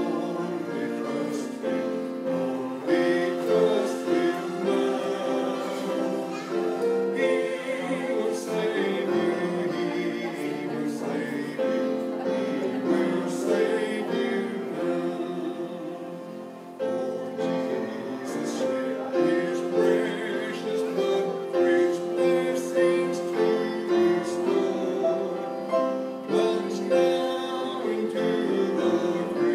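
Small church congregation singing a hymn together, with a short break between lines about 17 seconds in.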